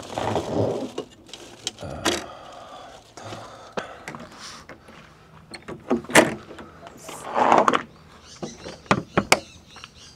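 A string of knocks, clicks and clunks with a few short sliding or rustling noises: a camper's door and latches being worked as someone climbs out of it.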